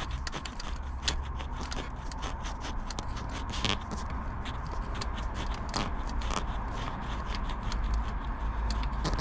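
Scraping and irregular small metallic clicks as the drive pulley bolt on an M113 V8 is slowly worked out by hand, over a low steady hum.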